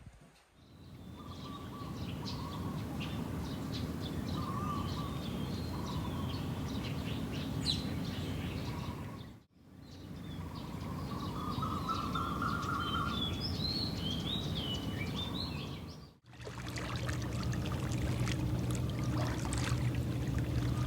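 Birds chirping and singing over a steady outdoor background hiss, in short ambient clips that drop out briefly twice; in the last part the background becomes a low steady hum with scattered clicks.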